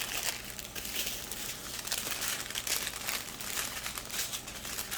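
Small plastic bags of diamond-painting drills crinkling as they are handled and sorted, a continuous rapid crackle.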